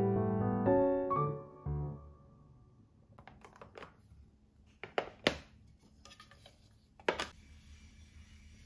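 Soft piano music that ends about two seconds in, then the clear plastic lid of a bento lunch box being pressed on, with a few sharp plastic clicks about halfway through and another near the end, followed by faint rustling of cloth as the box is wrapped.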